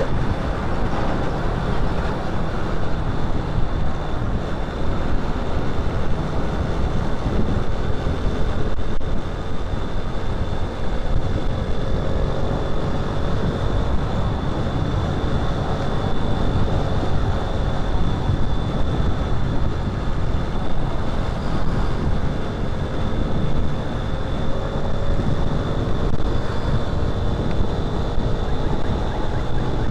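Manual-clutch motorcycle engine running on the move, with wind rushing over the microphone; the engine note drifts gently up and down.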